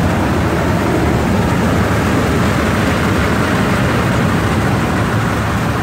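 Portable engine-driven rice threshing machine running steadily: a loud, even machine drone with a low engine hum underneath.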